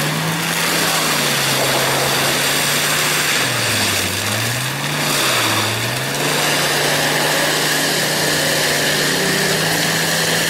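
Diesel engine of a tracked Galotrax 800 forestry machine running hard as it pushes its grapple through trees. Its note sags twice under the load, about four and five and a half seconds in, and picks back up each time.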